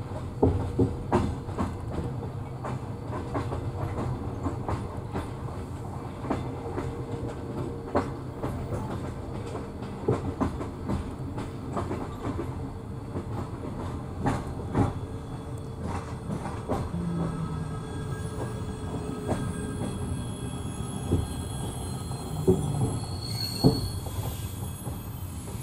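Passenger train rolling slowly into a station, heard from inside the carriage: a steady rumble with irregular clacks and knocks as the wheels cross rail joints and points, and a faint wheel squeal. A brief high whine comes near the end.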